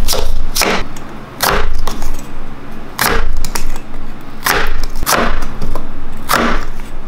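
Wavy-bladed crinkle-cut knife chopping down through a raw potato onto a wooden cutting board. There are sharp cut-and-knock strokes, often two close together, coming about every second and a half as slab after slab is cut off.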